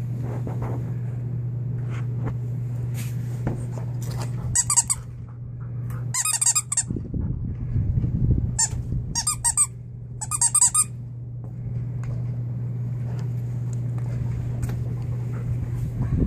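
Clear plastic squeaker from a torn-open plush dog toy, squeezed by hand in five quick bursts of rapid squeaks, over a steady low hum.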